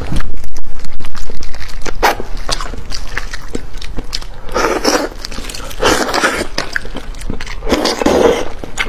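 Close-miked eating of a fish head: wet chewing and lip smacking with many sharp clicks, broken by several short sucking slurps.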